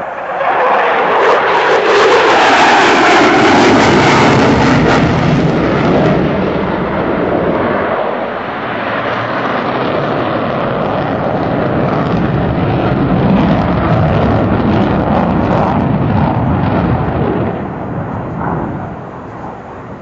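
F-14 Tomcat's twin jet engines as the fighter passes close by, loud from the start with a pitch that slides down over the first few seconds, then a sustained jet rumble that fades near the end.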